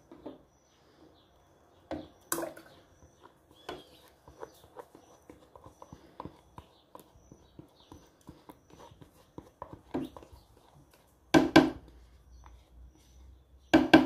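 Silicone spatula scraping thick cream out of a plastic container into a plastic blender jar: many soft scattered taps and scrapes, with a few louder knocks of the spatula against the plastic.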